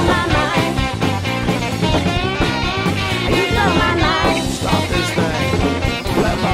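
Rock band playing an instrumental passage: a lead electric guitar line with bending notes over bass and drums.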